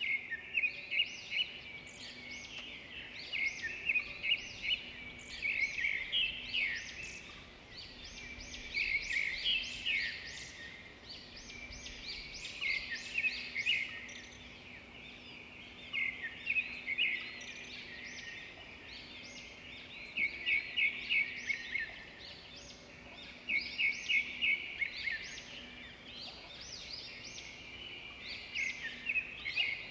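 Birds chirping in repeated bursts of quick, high notes, a new burst every two to four seconds.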